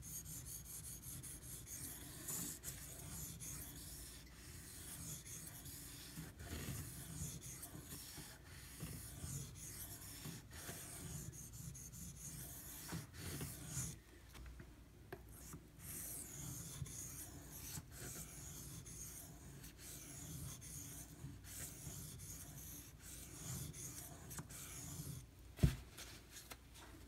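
Carbon-steel (1095) pocketknife blade being stroked back and forth across a Shapton Glass whetstone, a repeated gritty rubbing hiss as the belly of the edge is worked to remove scratches. The strokes pause briefly about halfway, and a single sharp knock sounds near the end.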